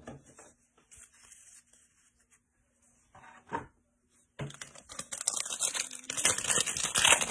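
A foil wrapper of a 2022 Elite football trading-card pack being torn open by hand, with loud irregular crinkling and tearing starting about four and a half seconds in.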